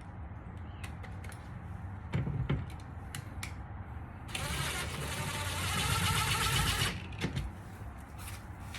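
A tool driving small door-panel bolts back in: a few light clicks and a knock, then a buzzing whir for about two and a half seconds, over a steady low hum.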